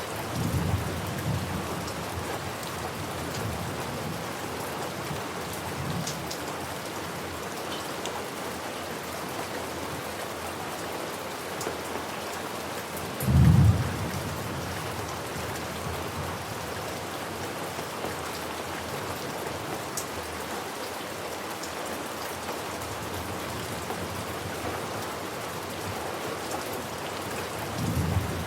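Steady rain falling, with thunder: low rumbles near the start and near the end, and a short, loud low thunder boom about halfway through.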